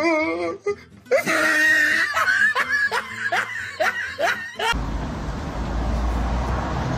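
A person laughing hard in quick repeated bursts. About five seconds in it cuts off suddenly, and a steady background hiss follows.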